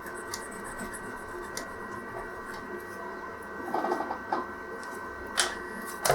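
Steady electrical hum with a few fixed tones, under faint ticks of small parts being handled on a workbench; a short clattery rattle about four seconds in and a sharp click a second later.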